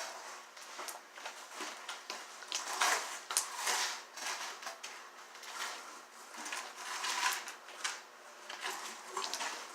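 Hands squishing and pressing slime, giving irregular small squelches and crackly clicks.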